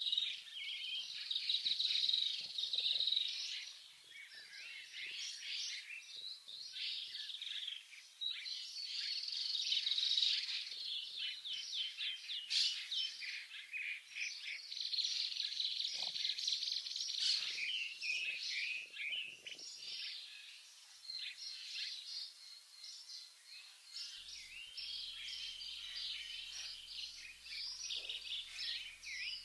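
Small songbirds chirping and twittering continuously: rapid high notes, many calls overlapping.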